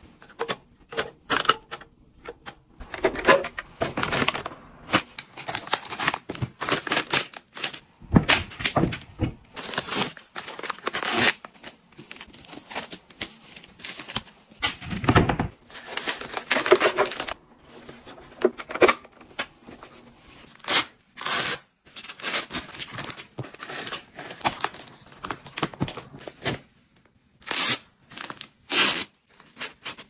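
A run of short clicks, taps and rustles from hands handling items in clear plastic organizers. Soft plastic-wrapped tissue packs crinkle and their wrapping tears.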